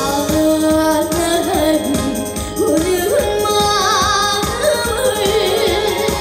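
Upbeat trot medley: a female voice singing a melody with heavy vibrato over a loud backing track with a steady drum beat.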